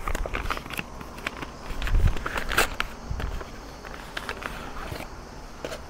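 Paper and cardboard gift packaging rustling and crinkling as a small jewellery box is unwrapped by hand, with irregular crackles and a few light knocks.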